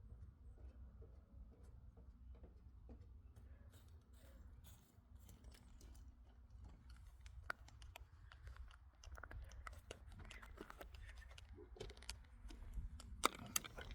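Near silence: a faint low rumble with scattered light clicks and ticks.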